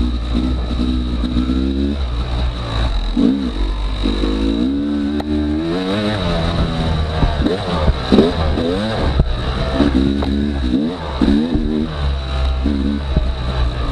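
Yamaha YZ250X two-stroke dirt bike engine, revving up and down over and over, its pitch rising and falling every second or two.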